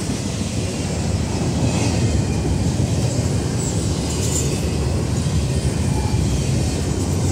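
Double-stack intermodal well cars of a freight train rolling past close by, a steady rumble of steel wheels on the rails.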